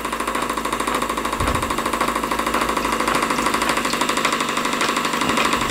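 Stuart Turner model steam engine running at speed, belt-driving a plastic beam-engine water pump: a rapid, even mechanical clatter over a steady hiss.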